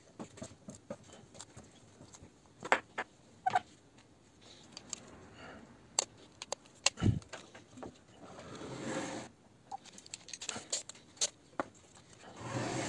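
A tape measure and pencil being handled against a board while measuring and marking: scattered light clicks and taps, a dull knock about seven seconds in, and two short rubbing noises, one just after the knock and one near the end.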